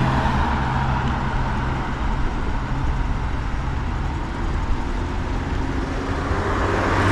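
Road traffic heard from a bicycle: a motor vehicle's engine hum fades away about a second in, steady tyre and road noise follows, and another vehicle's hum comes up near the end.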